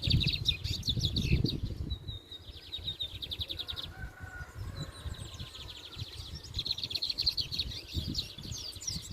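Caged songbirds singing in a bird song competition: long runs of fast, high, rapidly repeated notes, with short breaks about a second and a half in and about four seconds in, over a low background rumble.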